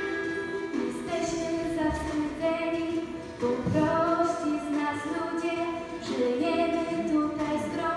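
Girls' school choir singing a song, one singer on a handheld microphone.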